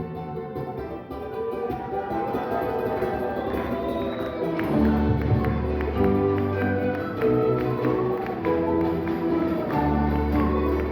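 Instrumental music from an ensemble of Andean and Latin American instruments, with sustained melody notes over a strummed or plucked rhythm; a deep bass comes in about five seconds in.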